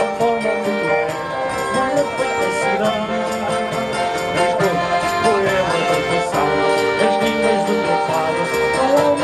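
Live folk-group music: keyboard and guitars playing a traditional tune with a steady rhythm.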